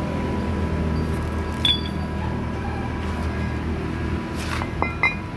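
A steel pin clinking against the steel of a backhoe link's bushed bore as it is fitted by hand, a short metallic clink about a second and a half in and another knock near the end, over a steady low hum.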